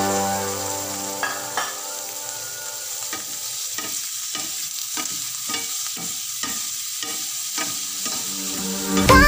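Tofu cubes and chopped onion frying in a stainless steel pan, with a steady sizzle, while a wooden spatula stirs and scrapes the pan about twice a second. Background music fades out in the first second or so and comes back near the end.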